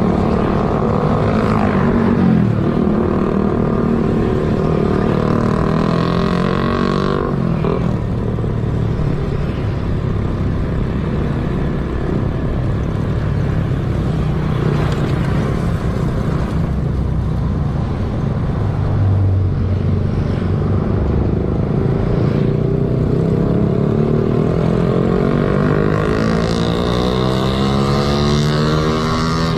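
Motorcycle engine running under way, with wind noise on a helmet-mounted camera's microphone. The engine note climbs steadily over the last several seconds as the bike speeds up.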